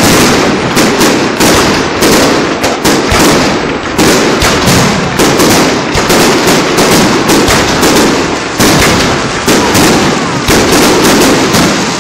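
Fireworks display: a rapid, unbroken barrage of loud shell bursts, a sharp bang every half second to second, with crackling between them.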